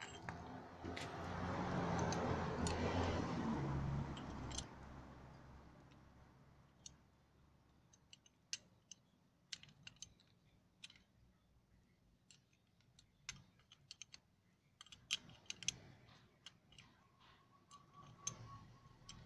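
Irregular sharp metal clicks and taps of a ring spanner on the brake lever's pivot nut of a motorcycle front brake master cylinder. A louder rumbling noise swells and fades over the first few seconds.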